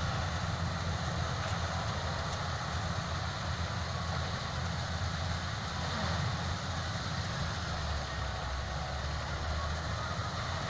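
Combine harvester running steadily, a constant heavy machine drone with no break.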